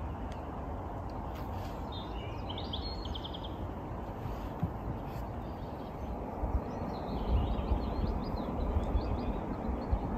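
Small birds chirping: a short rapid trill a couple of seconds in, then scattered chirps later. Underneath is a steady outdoor background with a low rumble, and a few soft low thumps come in near the end.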